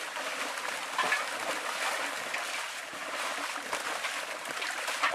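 Many fish thrashing and leaping in a tightly drawn seine net, a dense continuous splashing and churning of water with sharper splashes about a second in and again near the end.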